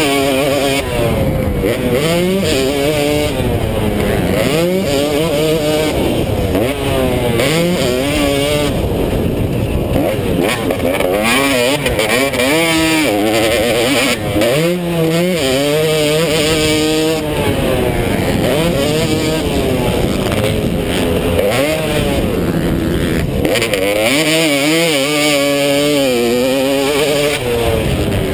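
250-class motocross bike engine racing flat out, revving up and backing off again and again, its pitch climbing and dropping roughly every two seconds as the rider works the throttle and gears around the dirt track.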